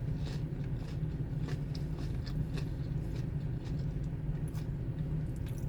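Steady low hum of an idling car, with scattered small crunches and clicks of someone chewing onion rings.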